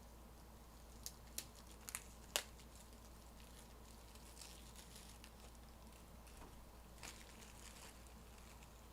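Near silence over a low steady hum, broken by a few faint sharp clicks, the loudest about two and a half seconds in, and light crinkling rustles.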